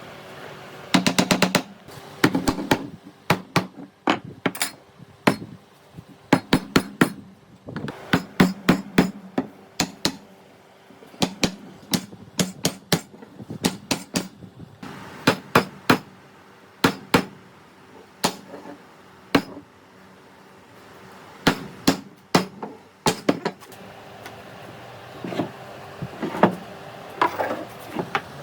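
Hammer strikes on wood: repeated sharp taps in irregular runs, with a quick flurry about a second in and a short pause about two-thirds of the way through.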